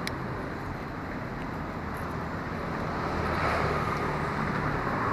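Steady hum of road traffic, with a vehicle passing close and growing louder about three seconds in.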